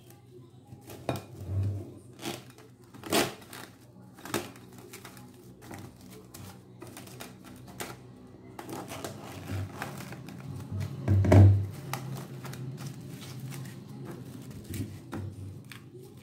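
Plastic cling film being pulled off its roll, torn and stretched over a ceramic bowl: crinkling and rustling with a series of sharp clicks and snaps, and a louder thump about eleven seconds in.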